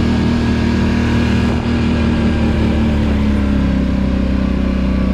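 ATV engine running steadily while riding along a trail, its note easing slightly lower about halfway through.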